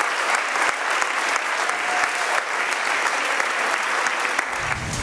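Audience applauding steadily with a dense patter of claps. A music track with a deep bass comes in just before the end.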